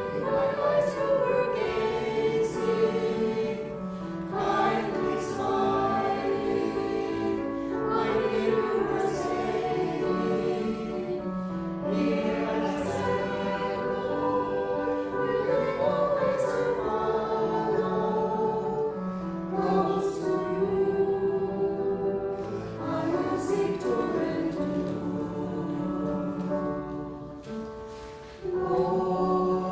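Group of voices singing a hymn in held, slow-moving notes. The singing fades briefly near the end, then comes back in strongly.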